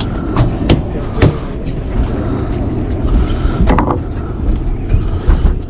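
Boat engine idling steadily, with a few sharp knocks over it.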